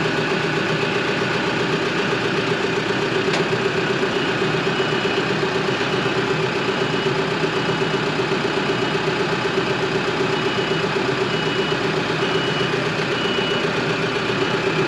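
An engine idling steadily at a constant speed.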